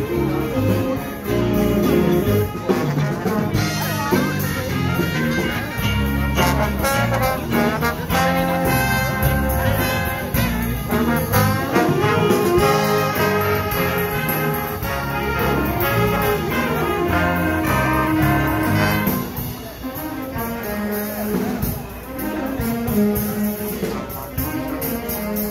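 A live band with saxophone and other brass playing music, a little fainter after about twenty seconds.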